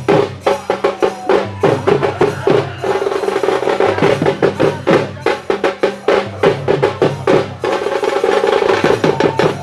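Drums beaten rapidly for festival dancing, many quick strokes over a steady droning note, with crowd noise.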